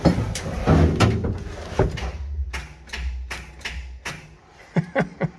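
Knocks and handling noise, then a few sharp clicks near the end as the ignition key of a Chevelle with a dead battery is turned; the engine does not crank.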